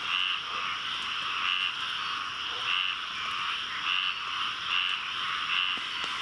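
A dense chorus of frogs calling in a swamp after rain, a steady din with one louder call repeating about once a second.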